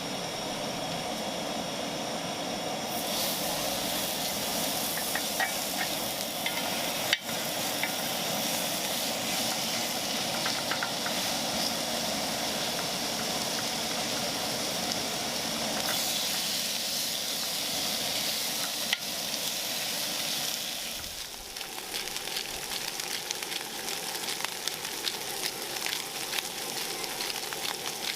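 Food sizzling and frying in a hot pan, a steady hiss. Near the end it turns to spitting and crackling pops.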